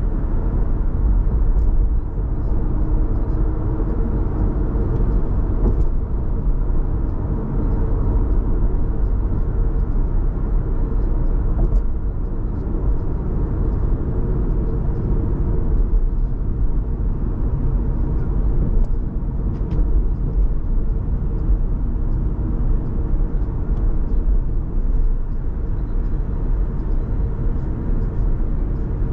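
Steady low rumble of a car driving: engine and tyre noise on the road, even throughout.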